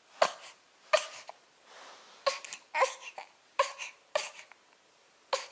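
Infant fussing in short, separate cries, about eight in a few seconds, each broken off quickly.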